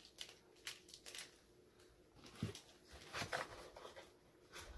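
Faint scattered clicks and rustles of fishing lures and their packaging being handled.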